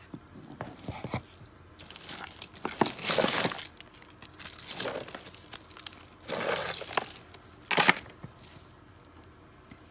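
Hands rummaging through a cardboard box of mixed costume jewelry: beads, chains and metal pieces clink and rattle against each other in several separate bursts, loudest about three seconds in and again near eight seconds.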